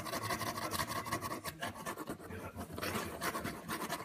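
Scottish fold kitten scrabbling about inside a cardboard box, its claws and fur scratching and rubbing against the cardboard in a rapid, continuous scraping.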